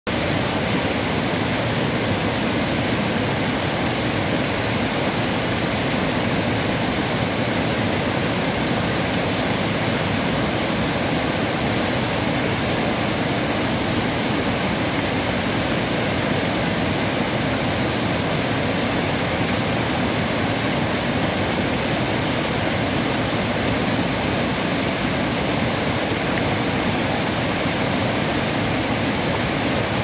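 Steady, loud rushing of a broad waterfall pouring over a rock ledge into a churning river pool, an even hiss with no break.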